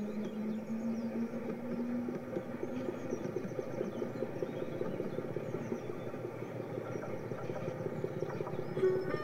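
N gauge model trains running on the layout: a motor hum that rises slightly and fades over the first two or three seconds, over a continuous fast ticking of small wheels on the track.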